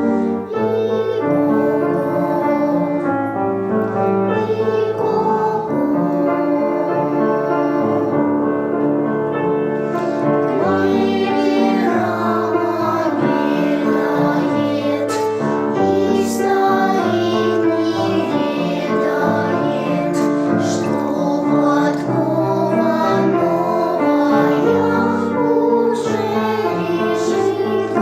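A song: a high voice singing a melody with piano accompaniment.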